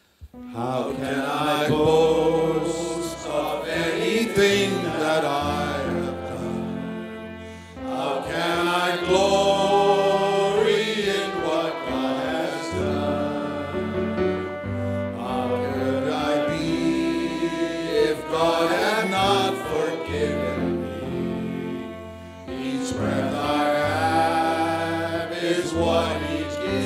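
A group of men singing a gospel song together, with instrumental accompaniment holding low notes underneath. The singing starts about half a second in.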